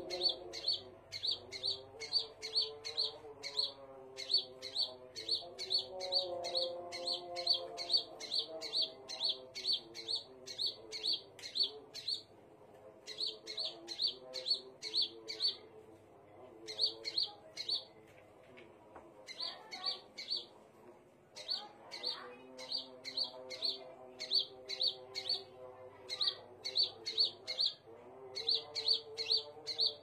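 Scarlet minivet (sepah raja) calling: a long run of short, sharp high chirps at about three a second, broken by a few brief pauses.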